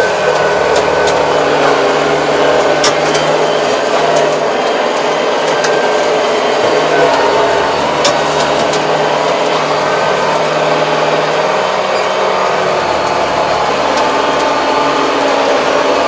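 Tractor engine running steadily, heard from inside the cab while the tractor works a field, with a few sharp clicks and rattles from the cab.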